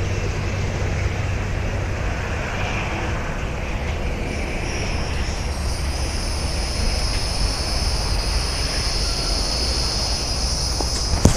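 Steady traffic noise from a nearby highway, joined about four seconds in by a high, steady whine that grows slightly louder; a short click comes near the end.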